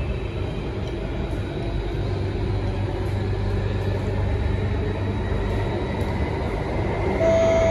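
Singapore MRT Circle Line train running at speed, heard inside the carriage: a steady low rumble of wheels and running gear. A high, steady tone starts just before the end.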